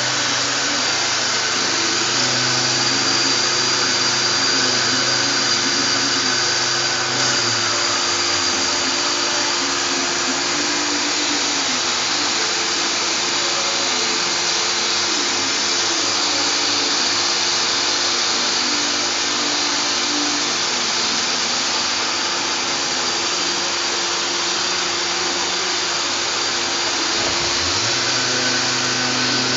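Gottschild HBS 2600 automatic sanding and polishing machine running with a steady, dense machine noise and a high whine. A low hum drops out about eight seconds in and comes back near the end.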